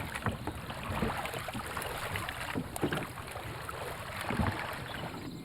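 Small boats being rowed or poled through water, with water lapping and a few soft paddle strokes.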